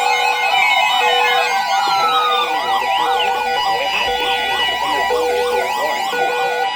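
Several phones sounding wireless emergency alert tones at once for a severe thunderstorm warning. A steady shrill attention tone is overlaid with rapidly warbling siren-like tones and a short low beep repeating about once a second.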